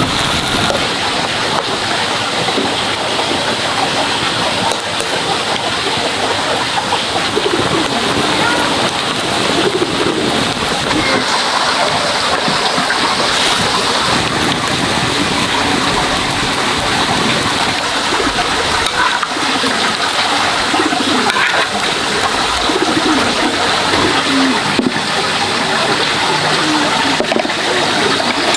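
Steady rush of water, even and unbroken, with faint short warbling tones over it.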